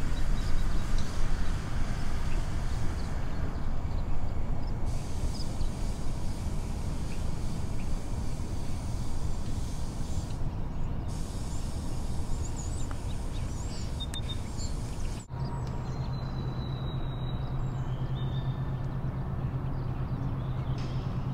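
Steady low rumble of outdoor background noise, with a few faint high chirps. After a sudden break about fifteen seconds in, a steady low hum joins it.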